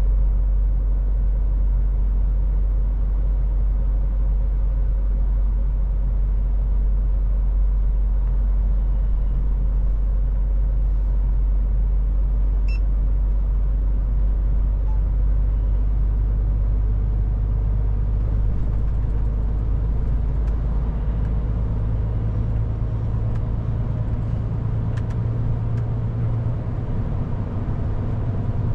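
Scania truck cab interior while driving: a steady low drone of the diesel engine and road noise. Past the halfway point the deepest part of the drone eases and a slightly higher hum comes up.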